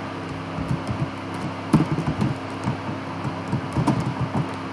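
Typing on a computer keyboard: irregular quick key clicks in small bursts, over a steady low hum.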